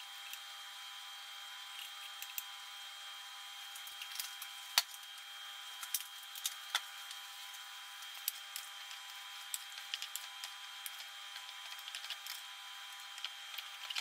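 Pork rib tips frying in oil in a pan: a steady sizzle with scattered sharp pops and crackles, the loudest about five seconds in. A faint high steady tone runs under it.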